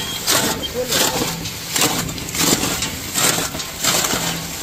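Repeated irregular crunching strokes, about two a second.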